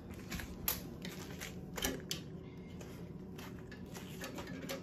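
Packaging being handled while a heat press is unboxed: irregular sharp clicks, taps and light rustles, the loudest near the start and about two seconds in, over a faint steady hum.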